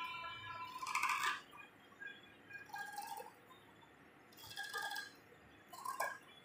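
Tailor's scissors snipping through cotton blouse fabric on a tabletop, a few separate cuts spaced about a second or two apart.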